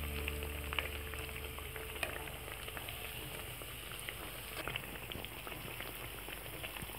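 Chira piyaju, fritters of flattened rice and onion, deep-frying in hot oil: a steady sizzle with scattered pops and crackles.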